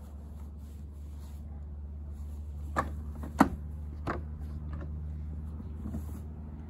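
Rubber latches on a Kong 50 hard cooler being snapped open: three sharp clicks in quick succession near the middle, the second loudest, over a low steady background rumble.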